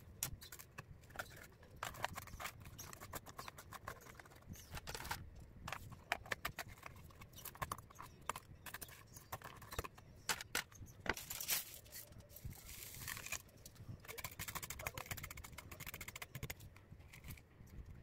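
Irregular light clicks, taps and scrapes of small hard materials being handled close to the microphone, over a steady low rumble.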